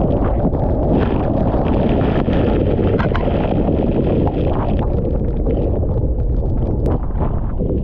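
Cyclone-force wind buffeting the microphone: a loud, continuous low rumble with crackling gusts on top.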